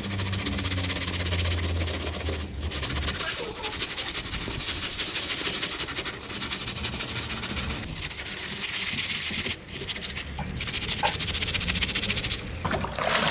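Plastic hand scrub brush scrubbing the wet mesh back panel and shoulder straps of a nylon backpack: quick rasping strokes in several bouts with short pauses between them.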